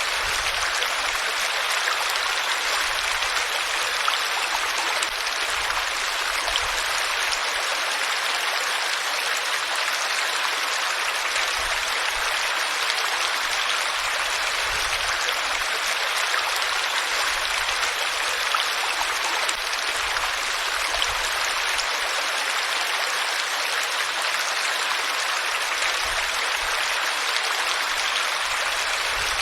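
Flowing water running steadily over rocks, an even, unbroken rushing.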